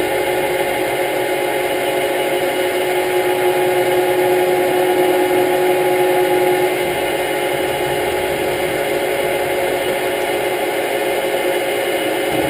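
Metal lathe running under power and cutting into the workpiece: a steady machine whine with several held tones. One of the tones drops away about seven seconds in.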